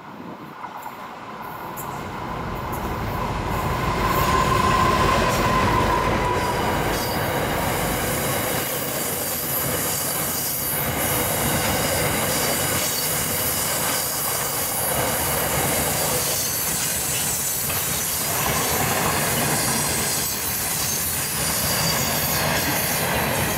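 NR class diesel-electric locomotive passing close by, loudest about four to six seconds in with a heavy low rumble. A long string of loaded ore wagons then rolls past with steady wheel and rail noise, scattered clicks over the rail joints, and a thin high squeal from the wheels.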